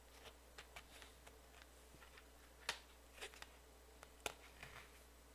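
Faint scattered clicks and ticks of a plastic multi-disc Blu-ray case being handled as its hinged inner disc tray is flipped over. Two sharper clicks stand out, one about halfway through and one about four seconds in.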